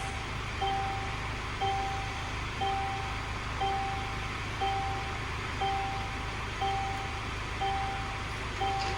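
A Mercedes Sprinter van's diesel engine idling, with an electronic warning beeper sounding a short tone about once a second.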